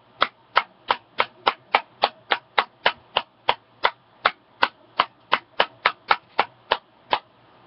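Can of Copenhagen Long Cut Wintergreen dip being packed: the tin flicked with the wrist so it taps sharply, about three taps a second in an even rhythm, stopping near the end. The taps settle the loose tobacco to one side of the can before it is opened.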